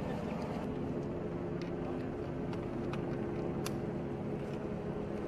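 Steady low engine hum of idling vehicles, with a few faint clicks over it.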